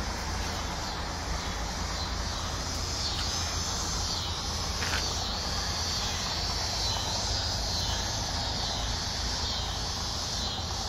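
Steady outdoor ambience: a chorus of insects chirping high and continuously over a constant low rumble.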